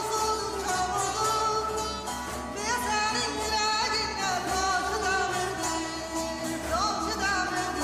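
Background music: a voice singing a melody with sliding, bending notes over steady held low tones.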